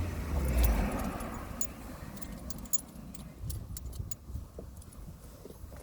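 A low steady hum that stops about a second in, then scattered light clicks and rattles of small hard parts being handled.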